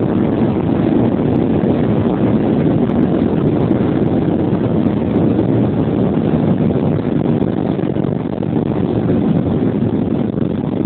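Boeing 737 on its takeoff roll, heard from inside the cabin: a loud, steady rumble of the jet engines at takeoff power and the wheels running over the runway.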